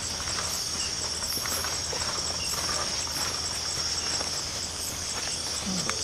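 Night insect chorus in tropical jungle: a steady high-pitched buzz with an evenly repeating chirp above it, a few pulses a second. Faint scattered rustling steps on the forest floor underneath.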